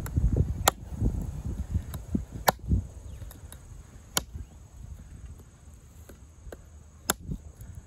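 LionSteel M7 fixed-blade knife chopping into a hard log: about half a dozen sharp knocks of the blade biting the wood, a second or two apart. A low rumble under the first few chops dies away after about three seconds.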